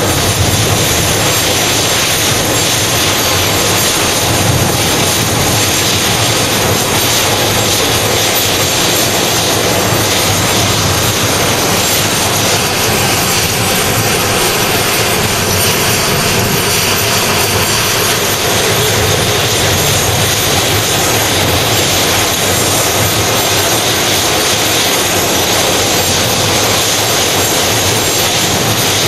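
CH-47JA Chinook tandem-rotor helicopter running on the ground, its twin turboshaft engines and both rotors turning: a loud, steady turbine rush with a low rotor beat underneath.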